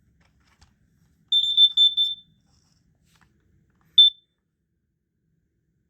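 Smoke alarm's piezo sounder beeping after a battery is put in: a quick run of about four short, high beeps, then a single short beep about two seconds later. The unit is faulty, and brief beeping instead of a proper alarm is all it does.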